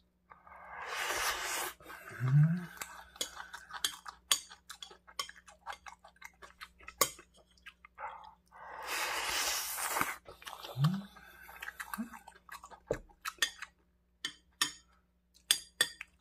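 Close-up eating sounds of kimchi fried rice taken with a metal spoon: two long slurps, wet chewing clicks, and the spoon scraping and clinking on the plate. There is also a brief rising hum from the eater twice.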